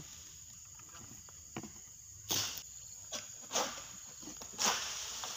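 A steady high insect drone, over which four short rustling swishes come in the second half as a long-pole harvesting sickle hacks and pulls at oil palm fronds.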